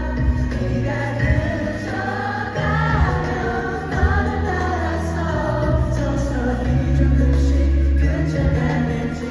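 Live K-pop ballad played over a concert hall's sound system: several male voices singing over long, heavy bass notes.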